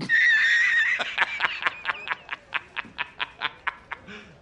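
A man laughing hard: a high drawn-out shriek of a laugh for about a second, then a rapid run of 'ha-ha-ha' pulses, about five a second, that die away.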